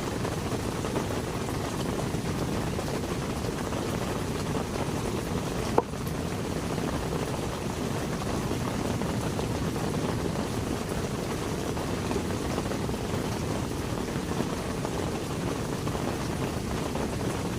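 Steady heavy rain, an even rushing hiss weighted toward the low end, with one sharp click about six seconds in.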